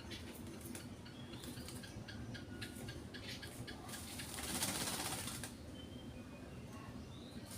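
Oriental magpie-robin (kacer) at its night bath: a run of quick light clicks and a few short high chirps, then a burst of splashing hiss from about four seconds in to about five and a half seconds in.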